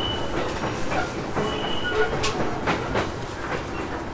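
Running sound heard inside a JR East E233-series electric train's motor car, with the air conditioning running: a steady rolling rumble and wheels clacking over rail joints, with two short high squeals from the wheels, one right at the start and one about a second and a half in.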